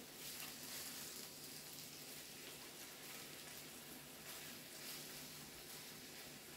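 Food sizzling steadily on a Korean barbecue grill: a faint, even crackle.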